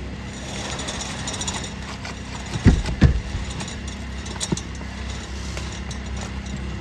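Engine running steadily with a low hum. Two loud, sharp knocks come in quick succession a little before the middle, and a lighter knock follows about a second and a half later.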